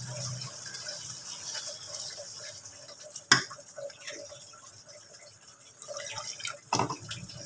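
Chicken in tomato sauce simmering in a frying pan, with soft bubbling and popping. A sharp knock comes about three seconds in, and a few softer ones near the end.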